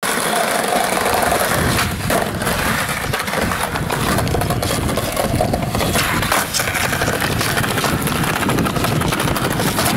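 Skateboard wheels rolling over concrete paving tiles: a steady rumble with a few sharp knocks from the board.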